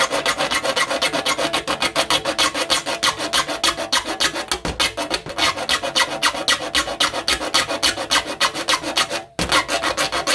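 A file being stroked rapidly across a hand saw's teeth to sharpen them, about five strokes a second. A short pause comes a little before the end, then a few more strokes.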